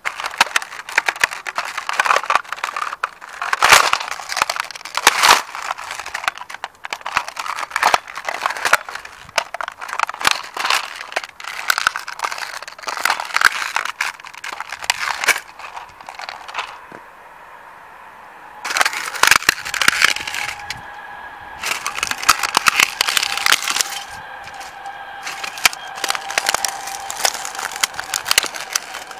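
Hard plastic toy tram cracking, snapping and crunching under a steel-toe Dr. Martens boot stamping and grinding it against asphalt, in rapid sharp cracks with a short lull past the middle. In the later part a steady high tone runs beneath the crunching.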